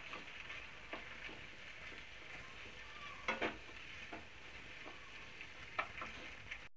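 Penne and onion-tomato masala frying in a non-stick pan while being stirred with a spatula: a steady sizzle with scattered scrapes and knocks of the spatula on the pan, the loudest a little over three seconds in and again near six seconds.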